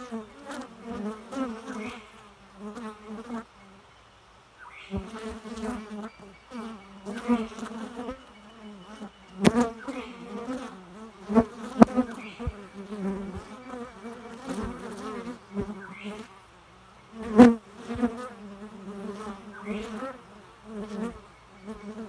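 Honey bees buzzing at the entrance of a wooden hive, the buzz swelling and fading again and again as single bees fly close past and away. Several sharp ticks cut through it, the loudest sounds in the clip.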